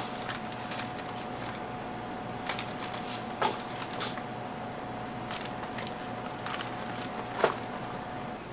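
Plastic-wrapped snack cakes (honey buns) crinkling in the hand and being set down on a store shelf: a string of light crinkles and taps, sharpest about three and a half seconds in and about a second before the end. A steady faint background tone runs underneath.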